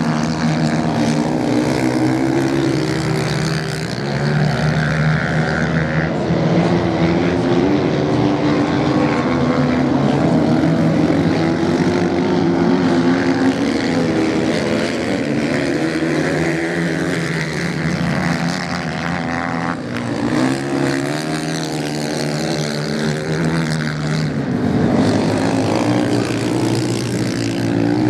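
Several off-road motorcycle engines racing at once. They rev up and down as the bikes slide through the corners on the sand, so the engine note keeps rising and falling.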